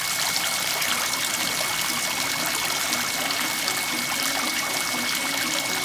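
Water splashing and trickling steadily in a tiered metal garden fountain, spilling over the rims of its scalloped bowls into the basin below.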